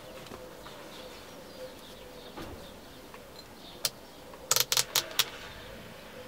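Sharp metal clicks from the stitch-width control lever on a Bernina 117-K sewing machine being moved through its notches: one click, then a quick run of four or five.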